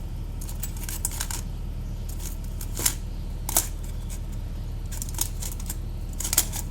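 Irregular small metallic clicks and taps of alternator parts (terminals, washers, screws) being handled and fitted during reassembly, over a steady low hum.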